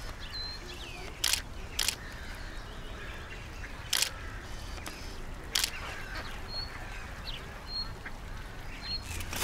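Birds calling, with short high chirps, over a steady background, and four or five sharp clicks at irregular intervals.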